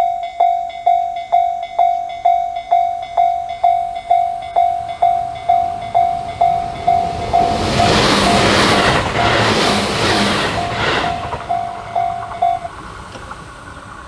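Japanese railway level-crossing alarm (Tobu 'sound C' type) ringing its single-pitch electronic bell about twice a second, warning of an approaching train. A Tobu 6050 series electric train passes from about 7.5 to 11.5 s and is the loudest sound. The bell stops about a second and a half before the end as the crossing clears.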